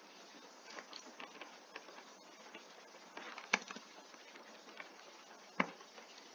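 Faint, scattered computer keyboard clicks over a low steady hiss, with two sharper clicks about three and a half and five and a half seconds in.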